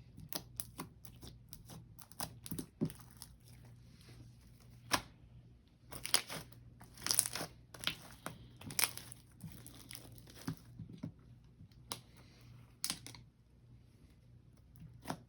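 Hands stretching and squishing freshly made clear slime full of air bubbles, giving irregular sticky crackles and clicks, some in quick clusters.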